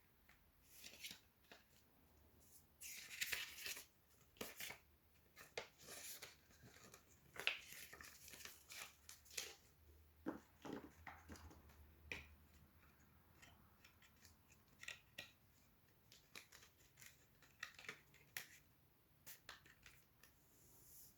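Product packaging being handled and opened by hand: faint scattered clicks and rustles, with a few brief tearing or scraping sounds.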